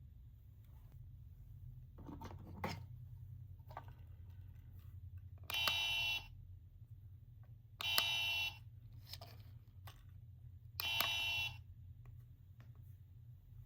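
A gachapon capsule sound toy plays a short buzzy electronic tone from its tiny speaker three times, each lasting under a second and starting with a button click. A few softer handling clicks come about two seconds in.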